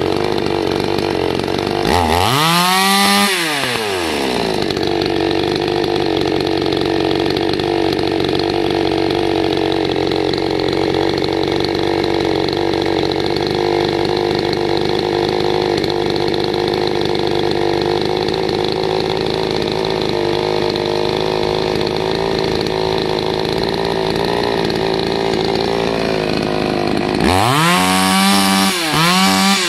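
Salem Master 6220G 62cc two-stroke chainsaw engine idling steadily while its carburetor is tuned because the saw is not reaching full RPM. It is revved up and back down once about two seconds in, and blipped several times near the end.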